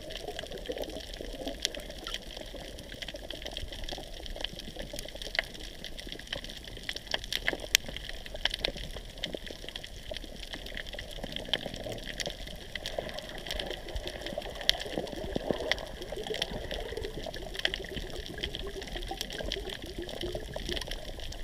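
Underwater reef ambience recorded with the camera submerged: a steady watery hiss with many small sharp clicks and crackles scattered throughout.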